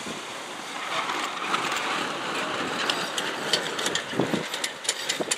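Wind buffeting the microphone over choppy water, with a run of sharp clicks and crackles in the second half.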